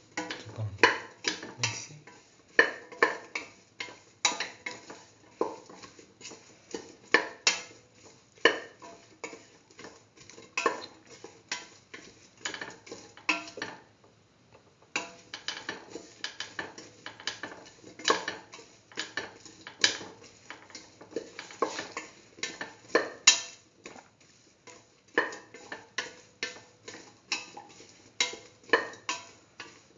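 A spatula scraping and knocking against a pan in quick, irregular strokes while stirring chunks of ash gourd and tomato, with a brief pause about halfway.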